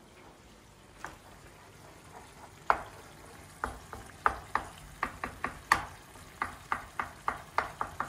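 Wooden spoon stirring menemen in a nonstick frying pan, over a faint frying sizzle. From about two and a half seconds in, the spoon knocks against the pan in a run of sharp taps, about two or three a second.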